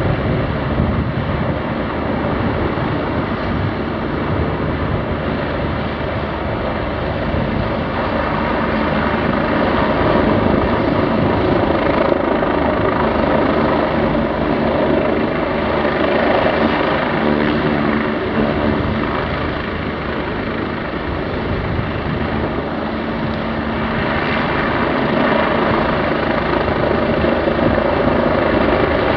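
Helicopter hovering low overhead: steady rotor and turbine noise that swells and eases slightly as it holds position.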